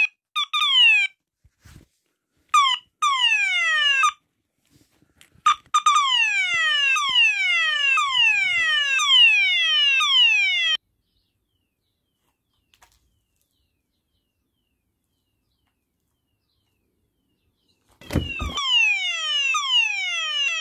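Red electronic fire alarm sounder run from a 9-volt battery, sounding a falling sweep tone repeated about twice a second. It starts and stops in bursts, falls silent for several seconds in the middle, and starts again near the end with a low thump.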